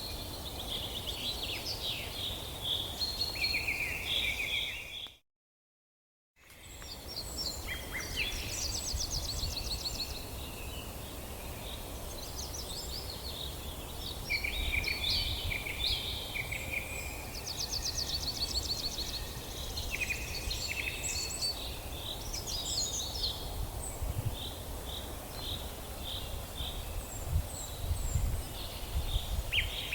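Several small birds chirping and trilling, with quick runs of repeated high notes, over a steady low outdoor rumble. The sound drops out completely for about a second, five seconds in.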